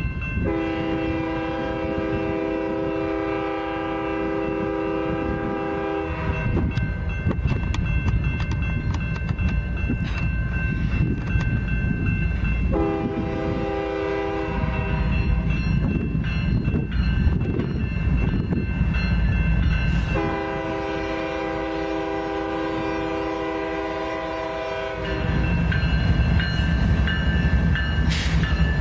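BNSF GE diesel locomotive air horn sounding for a grade crossing in three blasts (long, shorter, long) over the low rumble of the approaching freight train. Near the end the locomotives pass close by and the engine and wheel rumble grows louder.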